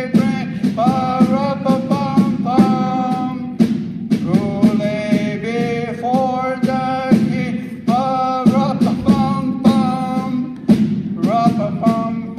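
Male voices singing a song, with a regular drum beat behind it.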